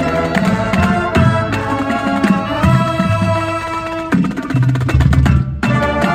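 Marching band playing: brass, saxophones and sousaphones over drums. The band cuts off sharply for a moment about five and a half seconds in, then comes back in.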